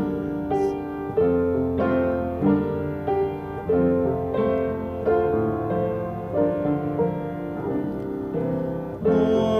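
Piano playing an instrumental interlude between hymn verses, with a new chord struck about every second.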